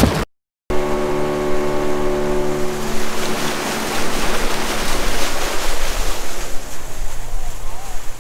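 Small aluminium boat's outboard motor running at speed, with water spray rushing and splashing along the hull and wind on the microphone. The motor's steady hum is clearest in the first few seconds, then the rush of water and wind takes over.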